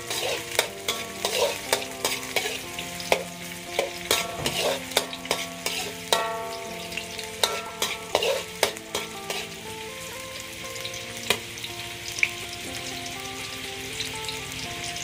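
Sliced shallots and garlic sizzling in hot oil in a metal wok, with a metal spatula scraping and knocking against the wok as they are stirred. The knocks come thick and fast at first, then thin out to a few after about nine seconds, leaving a steady sizzle.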